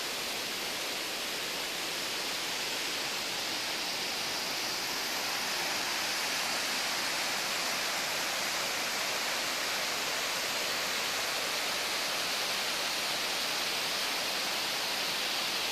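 Rushing water, a steady unbroken hiss of a stream or waterfall.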